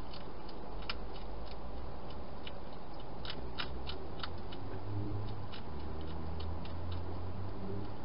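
Wild hedgehog chewing dry food inside a plastic feeding box: irregular crisp crunching clicks, a few a second, over the steady hiss of the camera's microphone.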